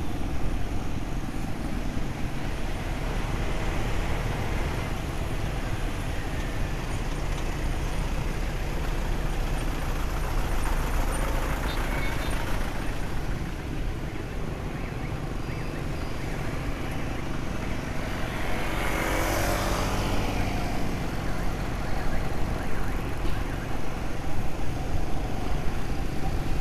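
Steady road and traffic noise heard from a moving motorbike: a low rumble of engine, tyres and wind, with the traffic around it. A broad swell of noise rises and fades about two-thirds of the way through.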